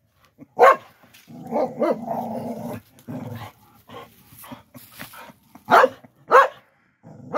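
Small dog barking in short, sharp, excited yaps at animals it cannot reach behind an enclosure fence. A longer, lower drawn-out sound comes between the barks about a second and a half in, and two more loud barks come close together near the end.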